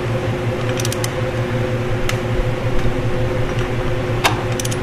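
Torque wrench with an 11/16 socket working a flywheel bolt: sharp metallic clicks in short runs about a second in and again near the end, with single clicks between. Under it a steady low hum.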